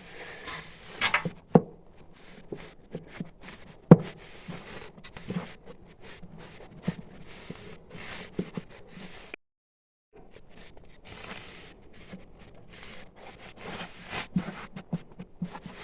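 Pieces of ceramic fiber board being fitted and wedged into place against firebrick: light scraping and rubbing with scattered small knocks, the sharpest about four seconds in. The sound drops out completely for under a second just past the middle.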